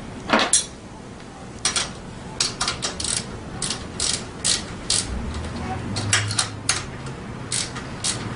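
Socket ratchet wrench clicking in short, uneven strokes as it tightens the nut on the rear shock's mounting bolt.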